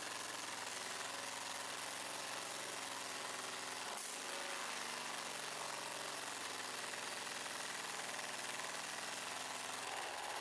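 Riding mower's single-cylinder engine running steadily. About four seconds in there is a faint click, and its pitch shifts slightly.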